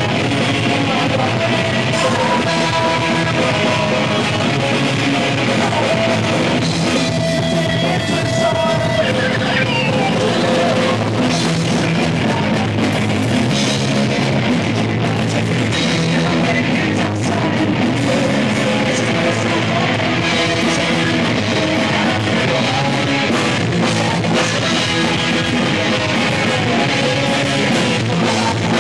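Punk rock band playing live: drum kit, electric guitar and bass going steadily, with a man singing.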